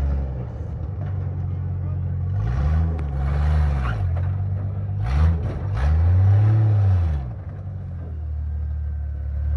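Rock crawler's engine running low, then revved three times in rising-and-falling blips, the last one the longest and loudest, as it works over the rocks.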